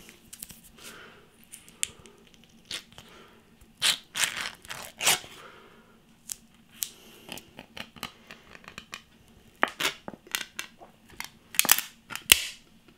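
A metal spoon prying and scraping at the pull-off lid of a plastic pudding tub, with tearing and crinkling of the lid and irregular sharp clicks. The loudest scrapes come about four to five seconds in and again just before the end.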